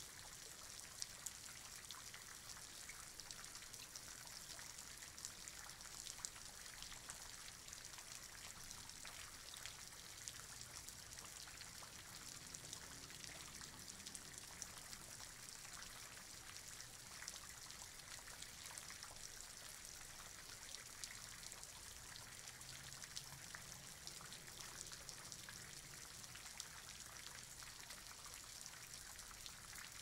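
Light rain falling steadily, heard from inside an apartment: a faint, even hiss dotted with many fine drop ticks.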